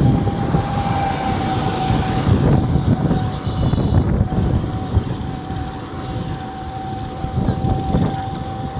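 Road traffic rumbling past, with a steady high whine held over it.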